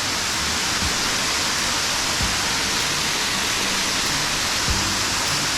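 Steady rushing of water pouring over a dam, an even roar with no pauses.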